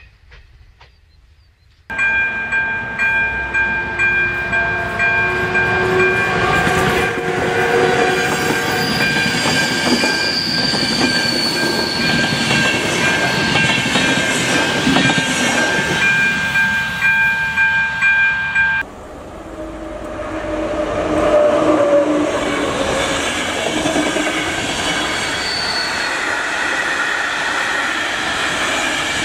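Passenger trains running past level crossings with wheel clatter and rumble. For most of the first part the crossing's electronic warning signal sounds steadily over the train, stopping abruptly about 19 seconds in, after which a second train keeps rumbling past without it.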